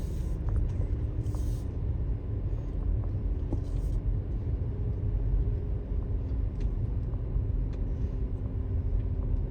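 Car running at low speed, heard from inside with the windows down: a steady low rumble of engine and road with a faint steady hum over it.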